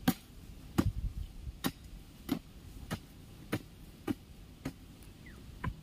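A hand hoe chopping into dry field soil, about nine strikes in a steady rhythm, roughly one every two-thirds of a second.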